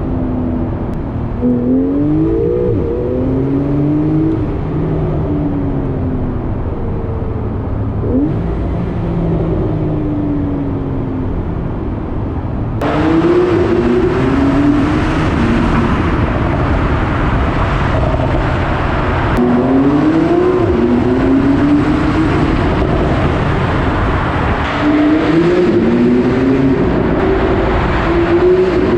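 Porsche 911 Carrera 4S (991.2) twin-turbo flat-six with flap exhaust accelerating hard through the gears: the engine note climbs and drops back at each upshift, over and over. About thirteen seconds in, the sound suddenly gets louder and brighter.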